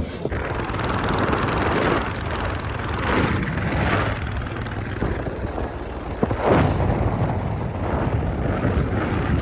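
Motorcycle running on the road, with wind rumbling and gusting on the microphone.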